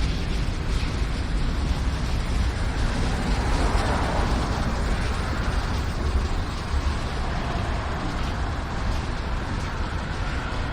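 Steady rumble and hiss of a vehicle running.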